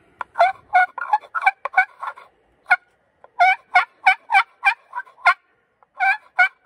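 Homemade maple wooden pot call played with a wooden striker, imitating turkey yelps. It gives runs of short yelping notes at about four a second, with brief pauses between the runs.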